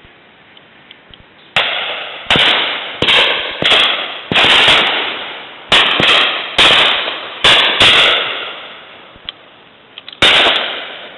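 Shotguns firing: about ten sharp reports in quick, irregular succession over six seconds, each with a short echoing tail, then one more shot after a pause of about two seconds.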